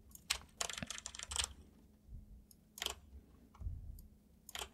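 Computer keyboard keystrokes and clicks: a quick run of keys about half a second to a second and a half in, then single clicks near three seconds and again near the end.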